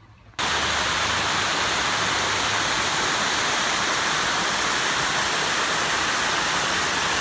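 Steady rushing of creek water, an even hiss that starts abruptly about half a second in and holds unchanged.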